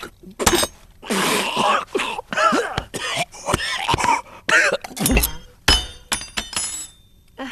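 A person coughing and spluttering, with sharp clinks of glass and tableware in between.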